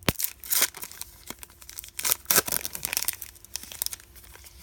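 A trading card pack's wrapper being torn open and crinkled: a sharp click at the start, then irregular rustling and tearing bursts.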